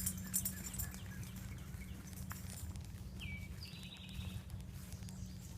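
Outdoor trail ambience: footsteps on a woodland path over a steady low rumble, with a bird calling briefly about three seconds in.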